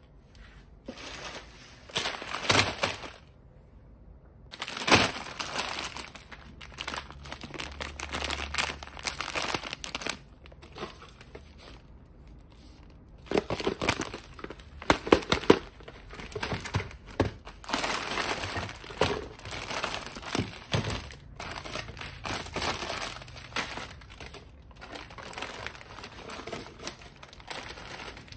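Plastic wrappers of instant noodle packets crinkling in irregular bursts as they are handled and stacked, with a few light knocks of instant noodle cups being set into a plastic basket.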